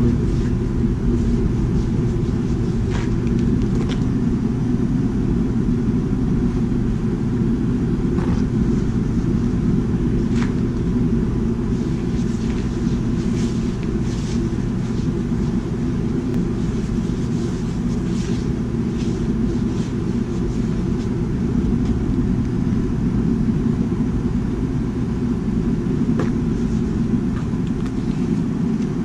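Propane burner under a cast iron disco wok, running with a steady deep rumble. A few faint scrapes and taps come from a paper towel wiping thin coats of oil into the hot wok to season it.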